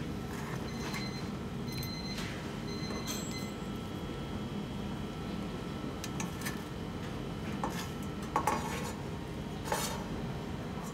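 Kitchen plating clatter: metal utensils clinking and tapping against a ceramic plate and a pan, with a few short ringing clinks early on and sharper knocks near the end, over a steady low hum.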